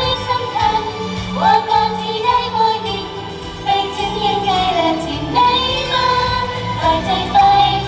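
Female idol group singing a pop song together over a backing track, the voices carrying one melody line with a steady bass beneath.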